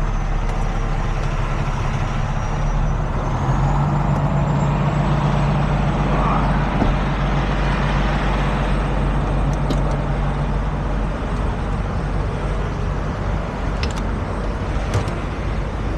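Heavy tow truck's diesel engine running as it is manoeuvred, its hum growing louder for several seconds in the middle and then easing back, with a few sharp clicks near the end.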